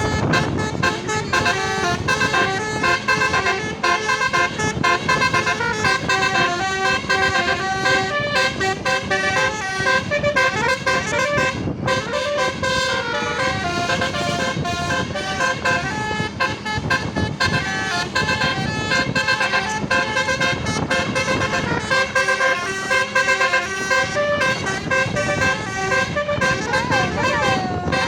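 Bus Basuri telolet horns playing a fast melody without a break, the notes jumping between several pitches many times a second, with a few sliding notes near the end.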